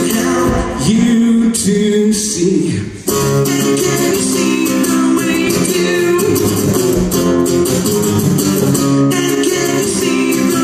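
Live acoustic guitar, strummed, with a man singing a rock song over it, with a brief dip about three seconds in.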